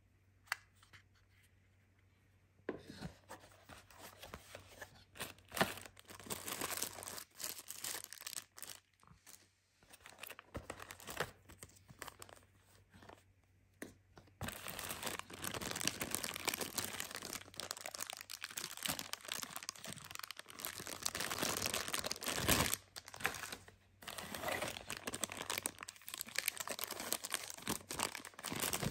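Plastic packaging crinkling and rustling as small bagged parts are handled in a cardboard box, with a few sharp clicks. About halfway in it becomes louder and steadier as a clear plastic bag is pulled open and peeled off a part.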